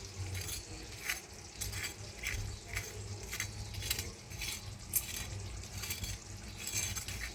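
Kitchen handling sounds: irregular light clicks and scrapes, a few a second, like a utensil or dish being moved about, over a steady low hum.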